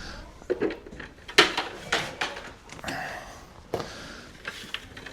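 Sharp wooden knocks and clunks from chicken-coop fittings being handled, several in a row, the loudest about a second and a half in.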